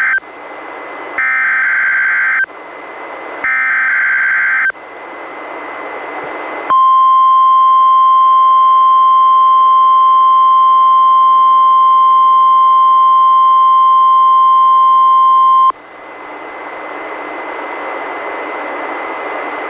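NOAA Weather Radio test broadcast. It opens with the end of one burst and then two more bursts of the SAME digital alert header: harsh, buzzy data tones about a second each, with radio hiss between them. After a short hiss comes the steady 1050 Hz warning alarm tone, held for about nine seconds and cut off abruptly, followed by radio hiss.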